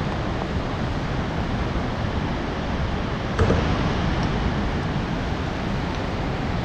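Steady rush of the Kootenai River's falls pouring over rock close by, with one short knock a little over three seconds in.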